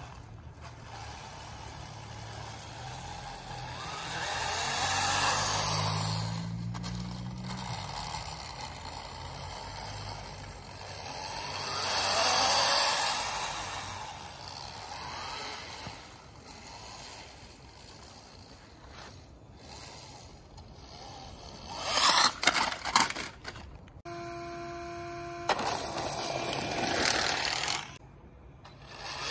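A radio-controlled snowmobile's motor and track driving over a thin layer of snow on pavement. The whine and scraping swell twice as it speeds up and passes close. A burst of clattering comes near the end.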